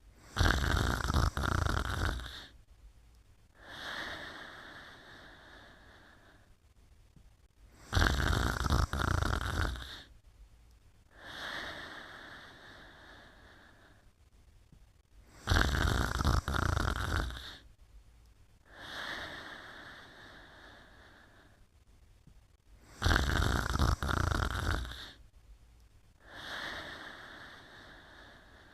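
Snoring in a slow, even rhythm: four loud snores about two seconds long, roughly seven to eight seconds apart, each followed by a softer breath that fades away.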